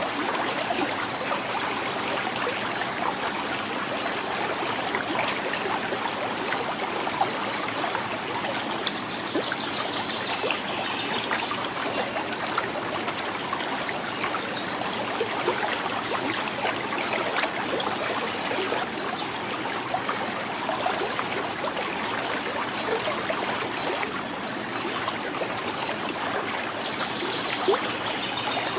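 Quiet river flowing steadily with a continuous gurgling.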